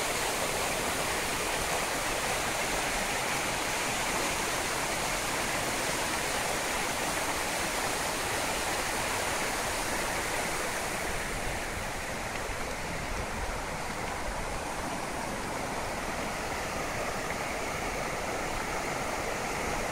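Muddy floodwater rushing down a ravine channel in full spate after torrential rain, a steady, even rush of water. It turns a little duller and quieter about halfway through.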